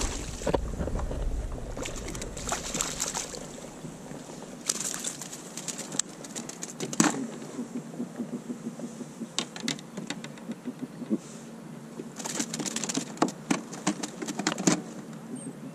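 A hooked fish splashing at the surface beside a kayak, then flapping in a landing net, heard as several irregular bursts of quick slaps and rattles.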